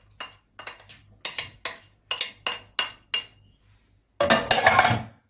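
A run of about a dozen sharp clinks with a short ring, a kitchen utensil knocking against a plate and the rim of a cooking pot as green lentils are tipped in. About four seconds in comes a louder second of scraping and rattling in the pot.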